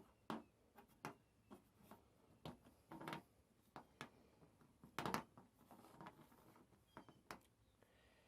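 Faint, irregular clicks and taps of small spare axle bushings being handled and compared, the loudest about five seconds in.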